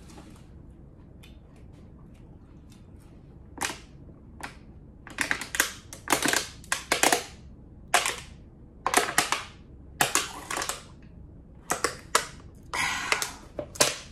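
Thin plastic water bottle crackling and popping as it is drunk from, its walls buckling in irregular sharp crinkling snaps that start about three and a half seconds in and come in clusters.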